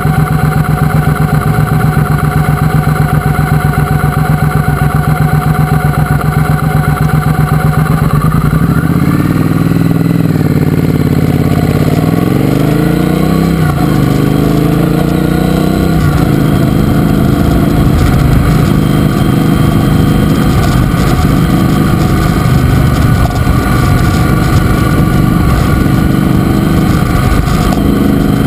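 Triumph Speedmaster's parallel-twin engine idling steadily at a stop, then rising in pitch as the motorcycle pulls away about eight seconds in. The pitch drops at an upshift, rises again, and then settles into steady running.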